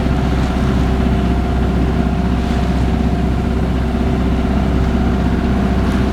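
A sailboat's engine running steadily under way while motor sailing, a continuous low drone with a fast, even beat.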